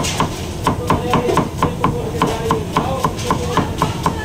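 Chef's knife chopping onion on a cutting board, the blade knocking the board in a quick, steady rhythm of about four strokes a second.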